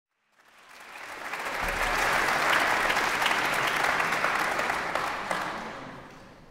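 Audience applauding: the clapping swells in over the first second or so, holds, then dies away near the end.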